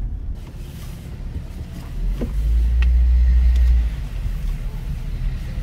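Low rumble of a Hyundai Veracruz heard from inside the cabin as it creeps forward at low speed. The rumble swells for a couple of seconds in the middle.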